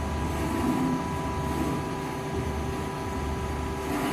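LVD Strippit V20 CNC turret punch press running idle between punches: a steady machine hum with a constant high whine and no punching strokes.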